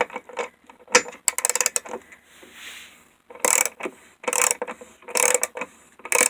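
Ratchet wrench clicking through repeated back-and-forth strokes on a stuck hex bolt that is not loosening.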